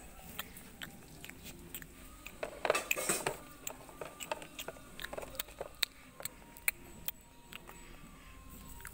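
Scattered light clicks and taps with some rustling, busiest about two and a half to three seconds in: small plastic toy animals being handled and moved about in grass.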